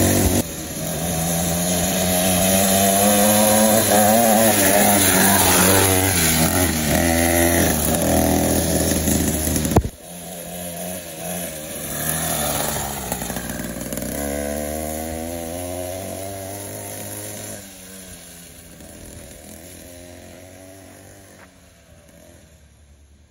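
Upgraded 49cc two-stroke pocket bike engine revving up and down on a test run. It drops sharply about ten seconds in, then keeps revving more quietly and fades out toward the end.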